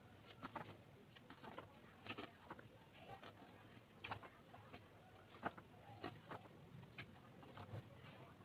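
Faint, irregular taps, clicks and rustles of a DVD boxset and its packaging being handled.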